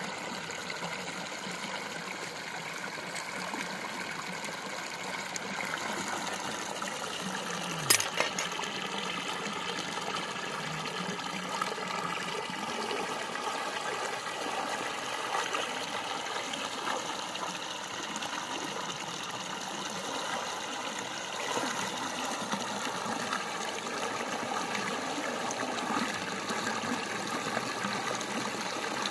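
Water running and trickling steadily, with one sharp knock about eight seconds in.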